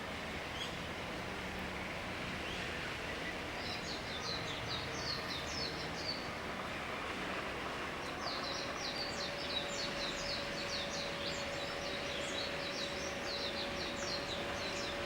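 Common kingfisher calling: a quick string of high, thin notes about four seconds in, then a longer rapid run from about eight seconds on, over a steady background hiss.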